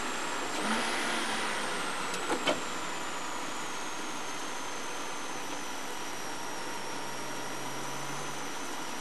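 Porsche Cayman race car heard from inside the cabin, its flat-six running at low speed as the car slows, under a thin high whine that slowly falls in pitch. A short burst of louder noise comes about a second in, and two sharp clicks around two and a half seconds in.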